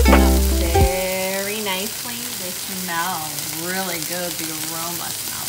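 Ground-chicken patties frying in olive oil in a nonstick skillet, with a steady sizzle. Background music with a strong bass ends about a second in, and a softer tune carries on over the sizzle.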